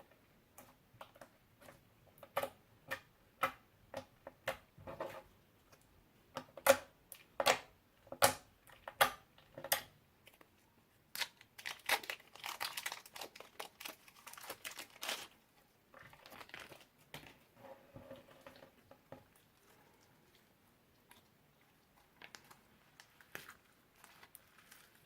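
Slime mixed with magic clay being squished and stretched by hand, giving a series of sharp wet pops and clicks, then a denser run of crackling, then fewer and fainter pops.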